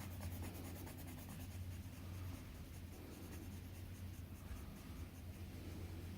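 Faint, steady scratching of a 0.5 mm Autopoint mechanical pencil's lead on paper as it shades.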